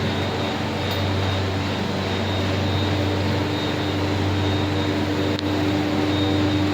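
Brückner stenter frame running in a textile mill: a steady drone of fans and drives with a strong low hum, a steady mid-pitched tone and a faint high whine, broken by a couple of faint clicks.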